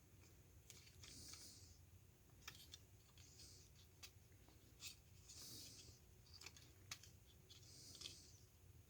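Faint, scattered light clicks of small plastic parts being handled as a computer mouse's scroll wheel is worked free of its housing, with soft breaths about every two seconds.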